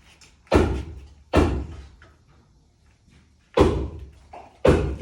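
Four heavy thuds, each sharp at the start and dying away within about half a second: two close together near the start and two more in the second half.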